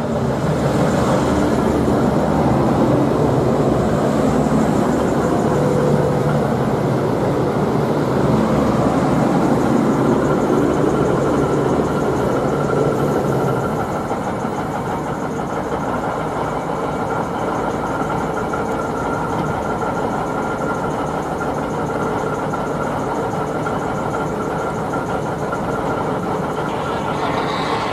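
V/Line VLocity diesel multiple unit drawing into the platform and coming to a stand, its underfloor diesel engines running loudly as the cars pass. About halfway through the sound drops and settles into a steady engine idle.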